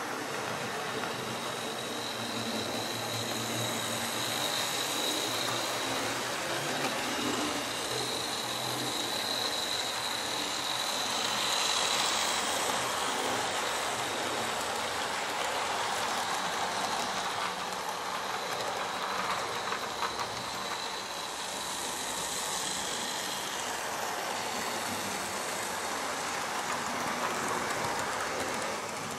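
Model railway train running on its track: a steady electric-motor whine with wheel rumble, swelling louder as the train passes close, about twelve seconds in and again near the end.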